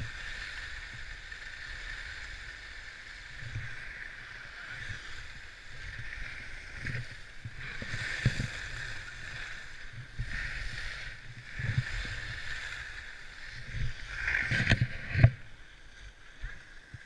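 Skis sliding over packed groomed snow, a steady hissing scrape that swells in irregular louder surges as the edges bite, the strongest late on.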